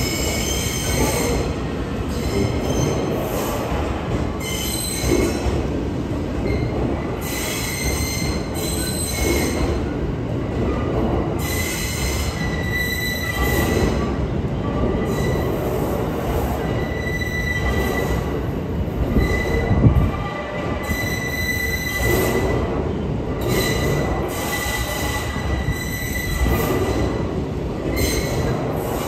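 E001 series TRAIN SUITE Shiki-shima rolling slowly over the station tracks, wheels rumbling, with a high wheel squeal that comes and goes. A single heavy thump about twenty seconds in.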